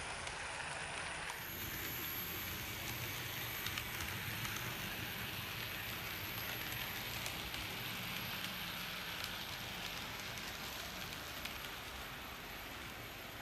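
N-scale model freight train running along the layout track: a steady soft rolling clatter of small wheels on rail, easing off slightly near the end as the train moves away.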